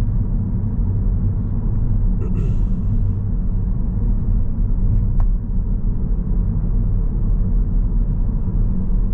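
Steady low rumble of a car's engine and tyres, heard from inside the cabin while driving along at a steady pace.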